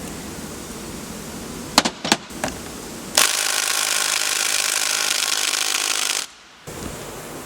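A few sharp metal clicks, then a power tool runs steadily for about three seconds while backing out bolts on a B-series transmission case.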